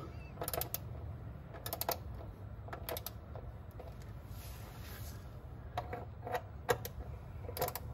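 Click-type torque wrench on an extension ratcheting in short bursts of sharp clicks, tightening the new bolts of a Mercedes 722.9 automatic transmission's oil pan to a first-stage 4 Nm.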